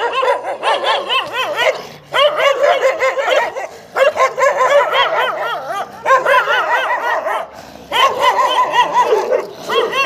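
Street dogs barking fast and aggressively, a warning-off threat display, in runs of about two seconds broken by short pauses.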